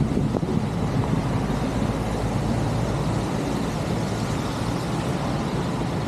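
Steady rain falling onto standing floodwater on a street, with a low wind rumble on the microphone.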